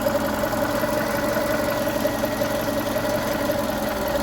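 VW Golf Mk5 1.6 four-cylinder petrol engine idling steadily and evenly, its cylinder 1 misfire cured by reseating the wiring at that cylinder's injector.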